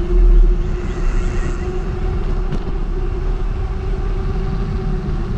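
Steady wind and road noise from a mountain bike rolling along wet asphalt, with a faint steady hum running under it.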